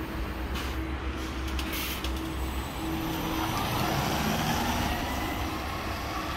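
Hyundai Elec City battery-electric city bus pulling away from a stop. Short hisses of air in the first two seconds are followed by the drive motor's rising whine and growing tyre and road noise as it speeds up.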